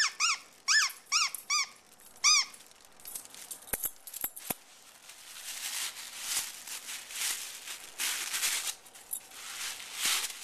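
A dog's squeaky toy squeaking about six times in quick succession as a dachshund chews it, each squeak rising and then falling in pitch. From about three seconds in, rustling as the dachshund tugs a green toy against a person's hand.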